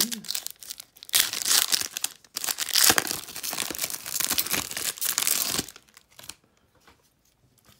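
Foil wrapper of a 2015 Donruss football trading-card pack being torn open and crinkled by hand, in loud bursts of crackly rustling that stop about two seconds before the end.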